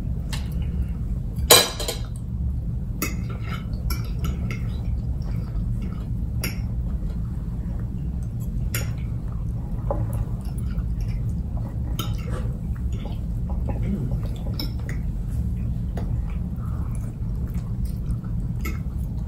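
Forks clinking and scraping on ceramic dinner plates during a meal, in scattered short clicks with one louder clink about a second and a half in, over a steady low hum.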